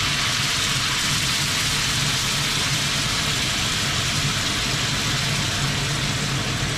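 Cola poured into a hot pan of oil, chicken wings and garlic, sizzling and bubbling hard at a steady boil, with a steady low hum underneath.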